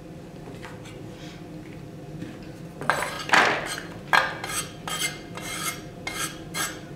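Kitchen knife scraping diced onion off a wooden cutting board into a plastic mixing bowl: a run of short, quick scrapes and knocks starting about three seconds in.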